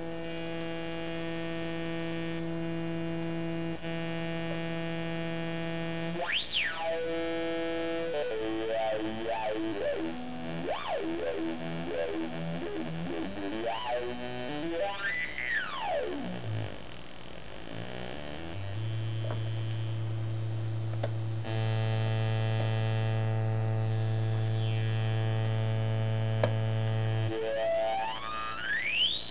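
Auduino, an Arduino-based granular synthesizer set to pentatonic mode, played through a Little Gem LM386 amplifier circuit. It sustains pitched tones that step between notes of the scale as its knobs are turned, with a long low note in the second half. A bright resonant peak sweeps up and down several times, the last just before the end.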